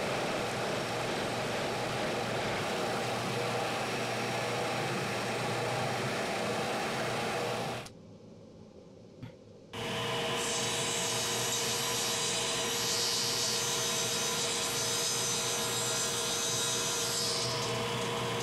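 A drill press runs, boring into a plywood plate, for about eight seconds and then stops. About two seconds later a table saw starts with a steady whine and cuts through the plywood plate.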